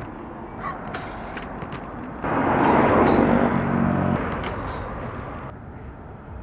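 Skateboard wheels rolling on pavement. The rush starts abruptly about two seconds in, with a low rumble, and fades over the next three seconds. A few short clacks come before and after it.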